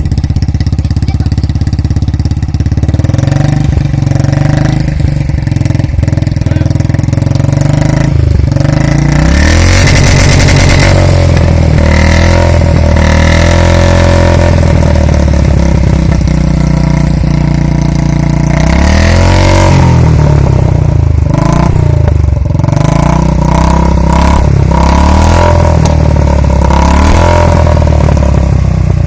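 Royal Enfield Thunderbird 350X single-cylinder engine running through an aftermarket short-bottle silencer, idling and revved up and down several times, with bigger revs about ten seconds in and again about twenty seconds in.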